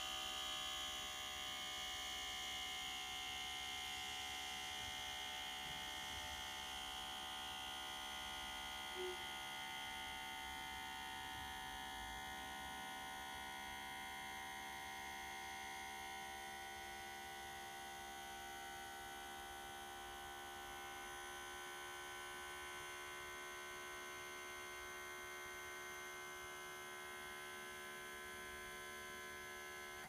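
Steady electrical hum from a La Pavoni Professional lever espresso machine with a PID temperature controller, made of several steady tones. It cuts off suddenly near the end.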